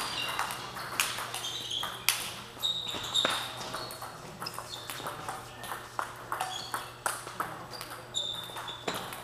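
Table tennis balls clicking off paddles and tables in quick, irregular hits from several tables in play at once, with short high squeaks among the clicks.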